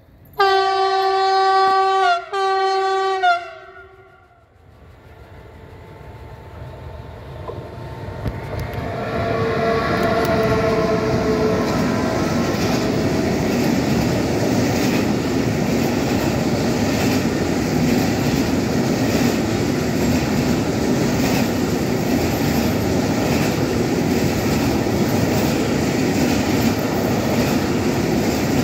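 Siemens Vectron electric locomotive sounding two loud horn blasts about half a second in, its acknowledgement to the filming railfan. The train then draws near and a long freight of loaded car-transporter wagons rolls past in a steady rumble, with wheels clicking over the rail joints.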